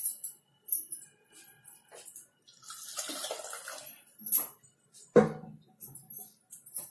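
Water poured from a plastic mug into a pressure cooker of simmering chana dal, splashing steadily for about a second and a half in the middle. A few light clinks of utensils come around it, and a sharp knock near the end.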